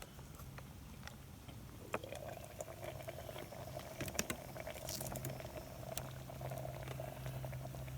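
Food with a little added water bubbling and sizzling in a mess kit pot on a small camp stove, with scattered small clicks. The bubbling becomes steady about two seconds in.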